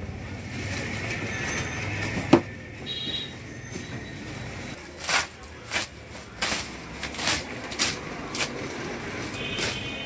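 Woven plastic sacks and cardboard parcels being handled and pulled open: a single knock a little over two seconds in, then a run of short, irregular crinkling rustles from about halfway.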